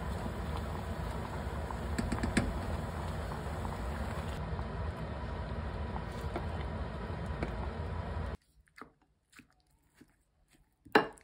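Steady hiss and hum of cooking at a gas stove while a wooden spatula stirs a pot of thick curry, with a few light knocks. About eight seconds in it cuts to near quiet, with small clicks and one sharp tap of a utensil on a plate near the end.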